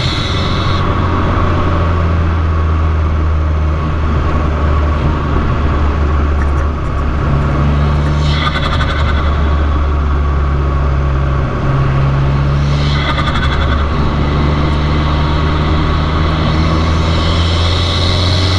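Fiat 500 Abarth's turbocharged 1.4-litre four-cylinder with an MPx cat-back exhaust, driving under load with a steady, loud, low exhaust drone. Its pitch shifts a few times, and a brief hiss comes twice, about eight and thirteen seconds in.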